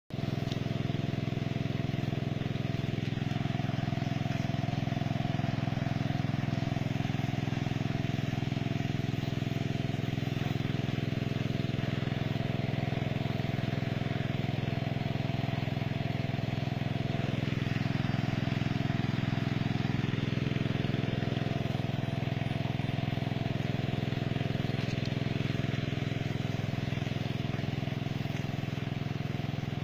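A small engine-driven water pump running steadily at constant speed, with an even hiss of water spraying from perforated irrigation hoses.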